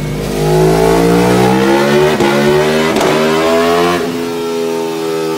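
Aprilia Tuono V4 1100's V4 engine pulling hard on a motorcycle dyno, its pitch climbing steadily for about four seconds with a couple of sharp cracks midway, then dropping as the throttle is closed.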